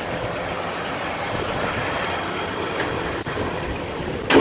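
1956 Pontiac Star Chief V8 idling smoothly and evenly, its fuel supply well tuned. Near the end, the hood is shut with a single loud bang, after which the engine sounds muffled.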